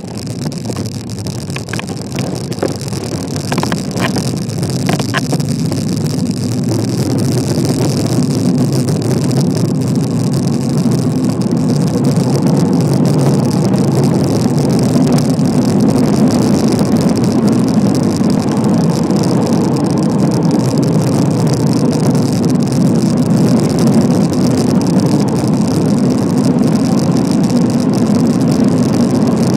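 Wind rushing over the microphone of a bicycle speeding downhill. The rush builds over the first several seconds as the bike gathers speed, then holds steady. A few light clicks come between about one and five seconds in.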